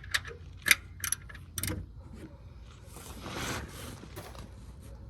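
Four sharp clicks and knocks from tools or parts being handled, in the first two seconds, then a short scraping rustle about three seconds in.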